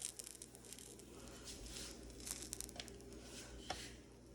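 Pancakes frying in a hot pan, a faint irregular crackling and popping, with a sharper click near the end.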